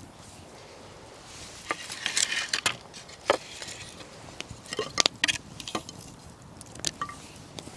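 Campfire crackling with irregular sharp pops, mixed with the rustle and knock of branches being laid onto the fire.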